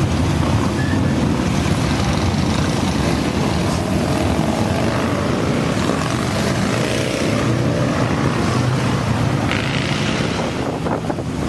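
A stream of motorcycles riding past, their engines running loudly.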